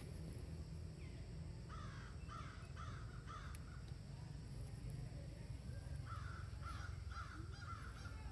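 Crows cawing in two short series of about four caws each, the first about two seconds in and the second about six seconds in, over a steady low rumble.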